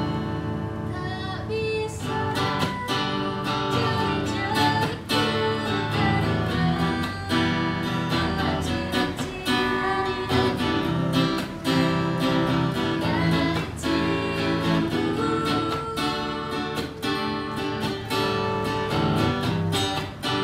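3/4-size Taylor-style electro-acoustic guitar strummed in steady chords, plugged into a small amplifier, with a woman singing along.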